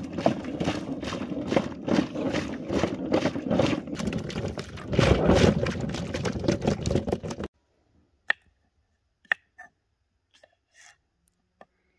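Water splashing as vegetables are swirled in a stainless steel bowl, stopping abruptly about seven and a half seconds in. Then come a few sharp knocks of a knife cutting cucumber on a wooden board.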